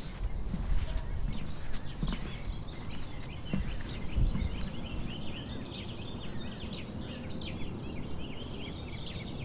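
Small birds singing busily, a steady run of quick chirping, warbling notes that grows denser about halfway through, over a low rumble with a few soft thumps early on.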